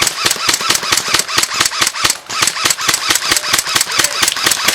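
Airsoft M60 light machine gun firing long full-auto bursts at roughly ten shots a second, with a short pause about two seconds in.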